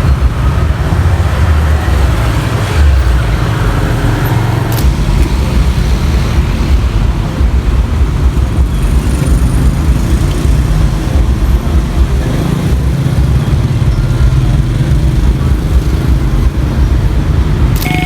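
Road traffic passing, a steady low rumble of engines and tyres. Right at the end a click comes and the level crossing's warning siren starts sounding.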